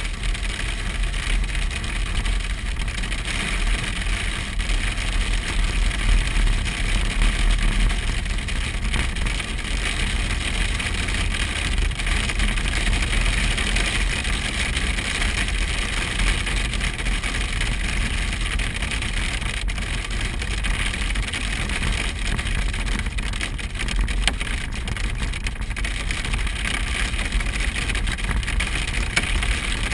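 A vehicle driving, heard from inside the cabin: a steady low road and engine rumble with a dense hiss over it.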